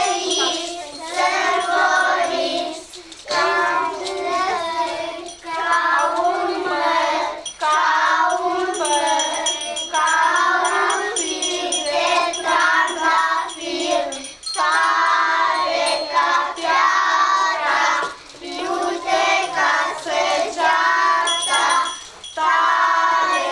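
A group of young children singing together in chorus: a traditional Romanian New Year's carol, in phrases with short breaks between them.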